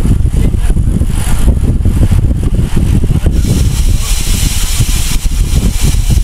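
Wind buffeting the microphone of a bike-mounted onboard camera while riding at speed, a loud, unsteady low rumble. About three seconds in, a brighter hiss of rushing air joins it.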